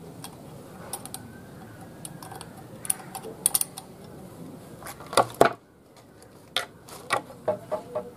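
Scattered clicks and light knocks of hands working on a small 12-volt DC table fan, tightening the screw that holds it on its clamp stand. The loudest pair comes a little past halfway.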